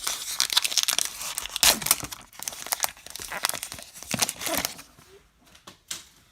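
A baseball card pack wrapper being torn open and crinkled, dense crackling for about five seconds, then a few faint clicks.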